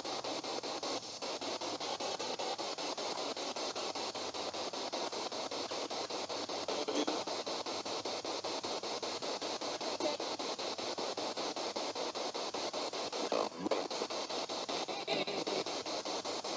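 Radio scanner sweeping through stations: a steady hiss of static with a fast, even choppy flutter, and a couple of brief blips near the end.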